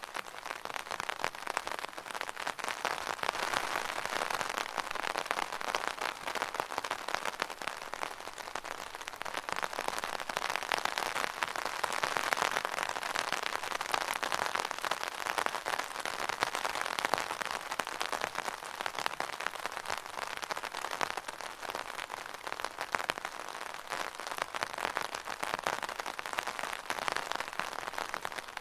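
Rain drumming steadily on an umbrella's fabric canopy, a dense patter of countless drops that swells and eases slightly.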